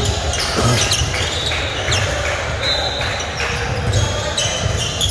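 Basketball bouncing on a gym court, with short high sneaker squeaks in between.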